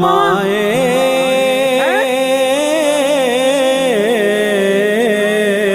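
Music: a Punjabi song, the singer holding one long, wavering, ornamented note on the word 'maaye' (mother).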